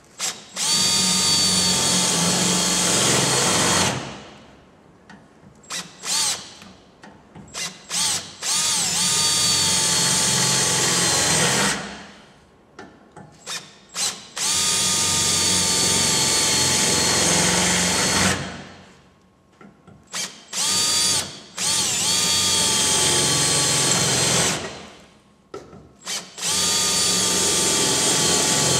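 Cordless drill with a 5/16 in (8 mm) bit drilling plug-weld holes through the outer sheet-steel panel of a car fender. The drill runs in five spells of a few seconds each, separated by short trigger blips and pauses. Its whine dips briefly and recovers a couple of times as the bit bites.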